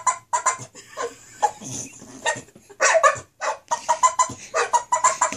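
English Bulldog giving a rapid run of short, high-pitched yips and whiny barks, about three a second, which sound pitiful rather than ferocious. The dog is upset at being left alone.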